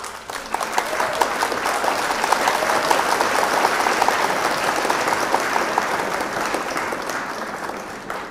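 Audience applauding: dense clapping that builds about half a second in, holds steady, and slowly dies away near the end.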